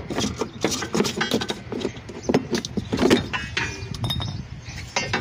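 Metal clinks and knocks of a car's rear coil spring and its spring perch being shifted and pulled out of the rear suspension, a run of sharp clicks throughout.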